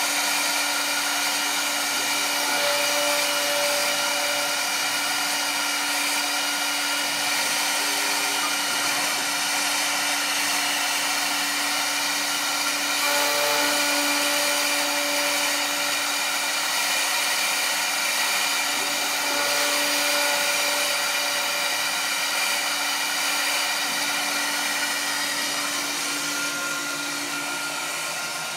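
Large milling machine running steadily: an even mechanical hum with several held whining tones over a hiss. A faint extra tone comes and goes a few times.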